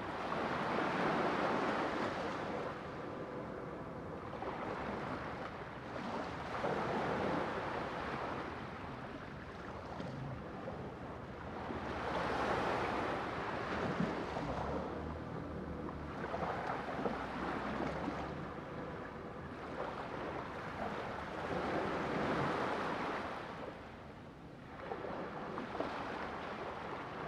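Sea waves breaking and washing on a shore, each wave swelling and fading about every five seconds.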